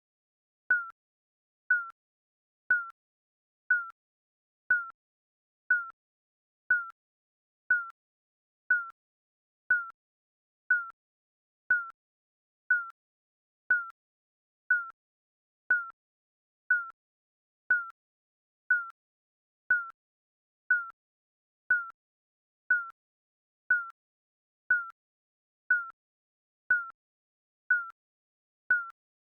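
Digital countdown timer beeping: a short, high electronic beep once every second, each with a sharp click at the start and a quick fade.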